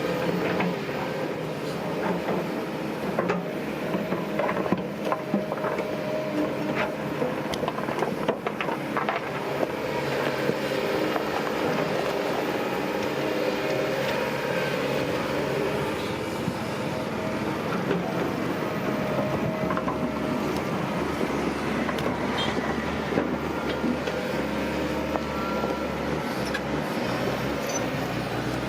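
Heavy earthmoving machinery at work: a diesel engine running steadily under load, with scattered metallic clanks and knocks.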